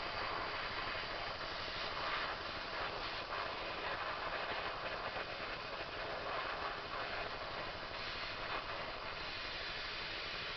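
Steady hiss of a burner flame with a spark plug held in it to burn off carbon fouling.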